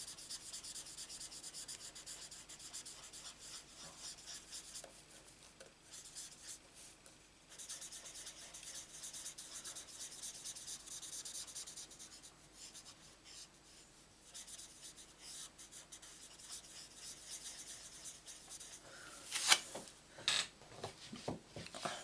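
Marker tip rubbing over cardstock in many short strokes as a paper butterfly is coloured in yellow, a faint scratchy hiss. A few sharp knocks near the end.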